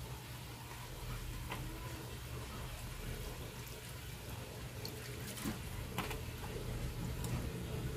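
Vinegar poured in a thin stream from a plastic bottle into broth in a wok, with a few sharp clicks and a steady low hum underneath.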